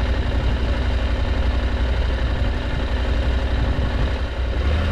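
KTM adventure motorcycle's twin-cylinder engine idling steadily with a deep, even hum.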